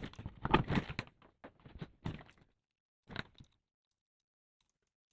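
Clunks and clatter of a golf cart's front wheel being handled and fitted back onto its new hub: a quick run of knocks in the first two and a half seconds, then one more knock about three seconds in.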